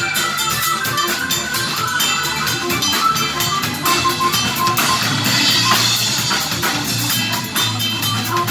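A live instrumental band playing: Hammond organ, electric bass, electric guitar and drum kit together, with the drums driving a steady beat.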